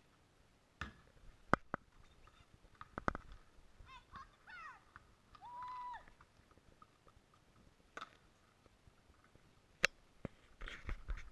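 A basketball bouncing on a concrete driveway, heard as a few scattered sharp knocks. There are faint high chirps in the middle.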